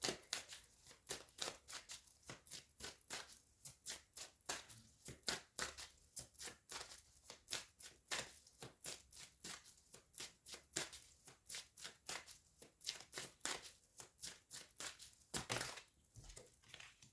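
Tarot cards being shuffled by hand: a long, uneven run of soft card clicks and slaps, a few each second.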